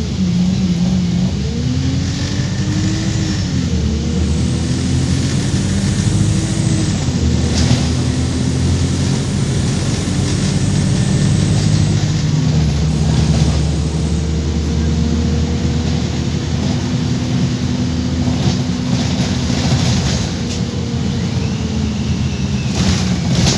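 Wright StreetLite Max micro-hybrid bus's diesel engine and gearbox heard from inside the saloon as the bus accelerates. The engine note rises and then drops at gear changes about 4, 7 and 12 seconds in, then holds fairly steady. It is a gearbox the owner calls very obviously dodgy and in need of replacement.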